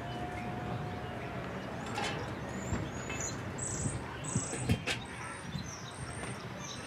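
Electric mountain bike rolling down a dry dirt trail over steady outdoor noise, with a few sharp knocks from the bike over bumps, about two seconds in and twice near the five-second mark. A brief steady tone sounds in the first second.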